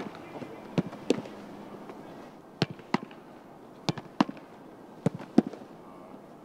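Football struck and caught in goalkeeper gloves over and over: sharp thumps, mostly in pairs about a third of a second apart, four pairs in all.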